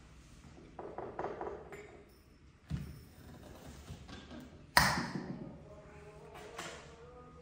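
Glassware and crockery clinking on a table while tea and compote are served: light clattering, a dull knock, then about five seconds in a sharp glass clink whose ringing tone lingers.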